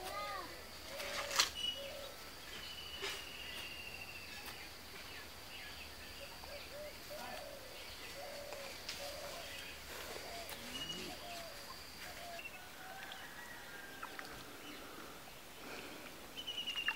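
Birds calling in open grassland: scattered short chirps, and a rapid descending trill a few seconds in, repeated louder near the end, over a steady high-pitched whine that stops about three-quarters of the way through.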